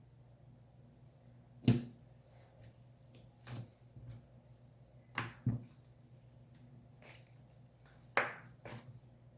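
Yellow cloud slime being worked by hand, giving sharp pops and crackles about six times, with two close together in the middle; the loudest comes a couple of seconds in. A faint steady hum lies underneath.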